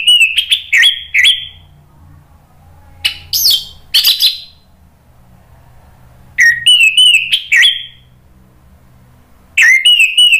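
Orange-headed thrush (anis merah) singing its loud, open 'ngeplong' song: four phrases of quick, rising and falling whistled notes, with pauses of about a second and a half between them.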